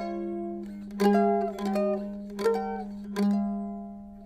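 Closing credits music: plucked string notes struck about once a second over a held low note, dying away near the end.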